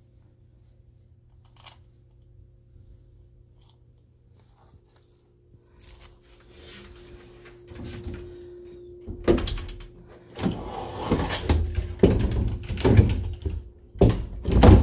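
A closet door being handled and opened: knocks, rattles and thuds, starting about halfway through and loudest near the end, over a faint steady hum.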